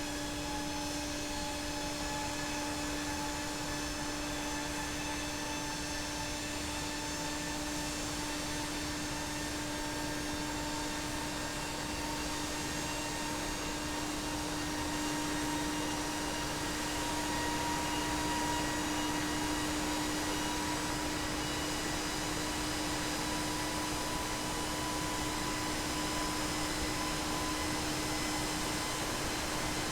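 GE Passport turbofan jet engine running up in power: a continuous rushing noise with a steady low hum and several higher whining tones that slowly creep upward in pitch as the engine accelerates. It grows slightly louder about halfway through.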